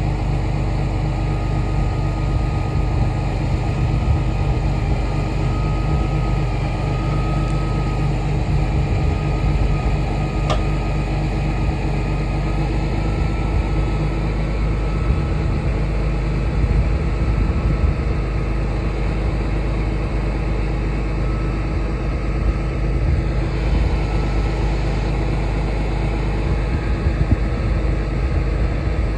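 A tractor engine running steadily while the Field-Pro sprayer's folding boom unfolds hydraulically, with one small click about ten seconds in.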